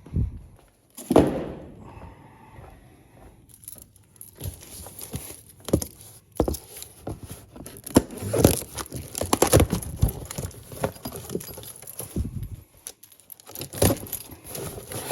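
Retail packs of phone screen protectors being handled and sorted: plastic packaging crinkling and rustling, with irregular light clicks and knocks as the packs are set down.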